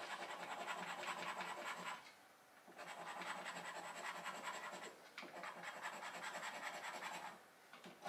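Rapid scraping as the silver coating is scratched off a paper scratchcard, in three bouts of quick back-and-forth strokes with short pauses between them.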